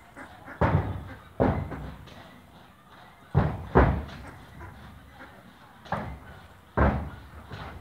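Two young goats butting heads: six sharp knocks at irregular intervals, two of them close together about halfway through.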